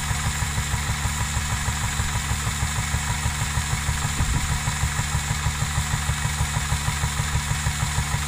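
1945 vintage milking-machine unit's single-cylinder stationary engine running steadily, with an even, rapid beat.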